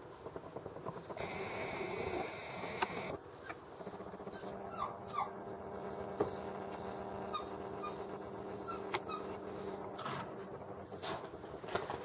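Nikon P500 camera's zoom motor running: a hiss for a couple of seconds, then a steady low whine from about four to ten seconds, with faint short high squeaks over it.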